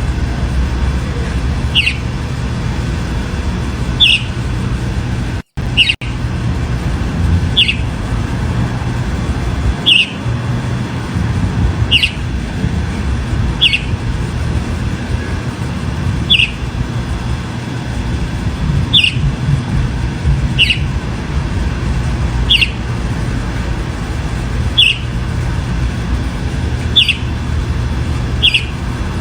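Chalk-browed mockingbird (sabiá-do-campo) repeating a short, high, falling note about every two seconds, over a steady low rumble.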